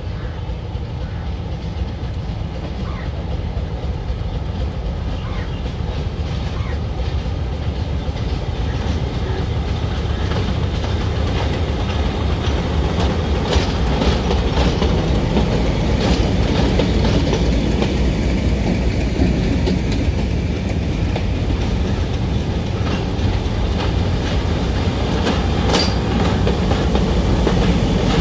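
Diesel locomotive engine running in a steady low rumble while shunting, growing gradually louder. Scattered clicks and knocks from the wheels over rail joints and points come in the middle, and a brief high squeal near the end.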